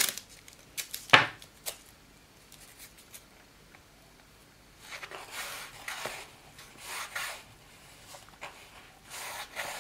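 Adhesive tape pulled off its roll and torn, with a couple of sharp rips near the start, then fingers rubbing the strip down onto the fabric-covered board in a series of soft swishes.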